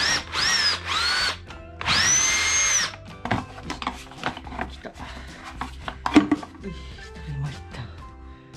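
Cordless drill-driver whirring in four short bursts in the first three seconds, its whine rising as it spins up and dropping as it stops, as it backs out the screws holding the air-cleaner chamber. After that come scattered light clicks and clatter of plastic parts being handled.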